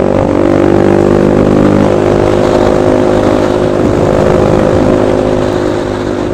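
Kawasaki Bajaj Rouser RS200's single-cylinder 200 cc engine running steadily through an SC Project exhaust with its silencer removed, giving a loud open-pipe exhaust note.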